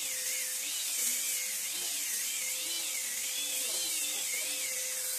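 Handheld electric disc sanders running against wooden planks: a steady motor whine with grit hiss, its pitch wavering up and down as the tools are pressed and moved over the boards.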